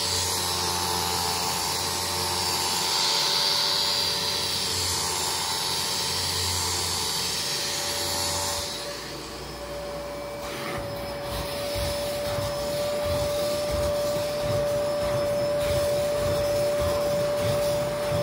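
A Kärcher carpet-cleaning machine's vacuum motor runs with a steady hissing whine and cuts off about halfway through. After that a drill-driven brush whines steadily while its bristles scrub the carpet in rough, uneven strokes.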